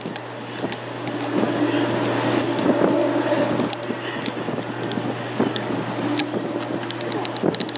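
Wind buffeting the microphone, with a steady low hum and a humming tone that swells twice, plus scattered sharp clicks.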